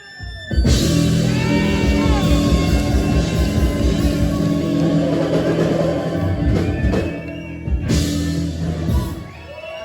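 Live rock band playing loudly with drums and guitar. It kicks in about half a second in and stops abruptly near the end.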